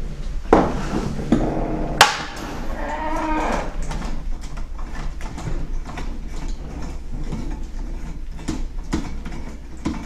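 Clicks and knocks of a brass doorknob and mortise lock hardware being handled and turned, the sharpest about two seconds in. Right after it comes a drawn-out pitched creak of about a second and a half, then only small scattered ticks over a low steady hum.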